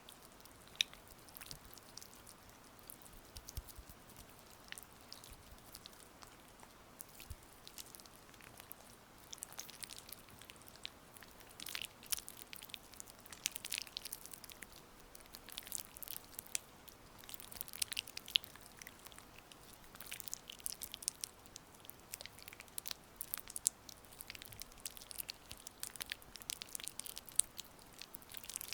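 Oiled hands massaging skin close to the microphone: irregular, sticky, wet clicks and smacks, denser in the middle stretch, over a faint steady hiss of rain.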